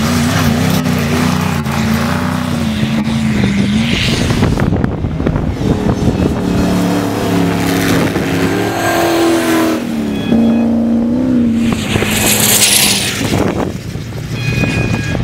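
Engines of off-road racing 4x4s revving up and down as they drive over sand humps, their pitch rising and falling several times, with wind buffeting the microphone.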